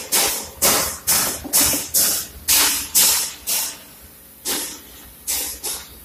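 Toyota Fortuner diesel fuel filter's hand priming pump being pressed again and again, a short hiss of escaping air with each stroke, about two a second, with a brief pause midway: air being bled from the fuel system after the filter change.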